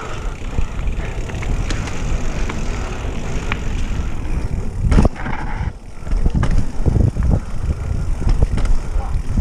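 Mountain bike riding fast down a dirt trail: a steady rumble of tyres on the ground and wind on the microphone, with a sharp knock about five seconds in and a run of clattering knocks shortly after as the bike goes over bumps and roots.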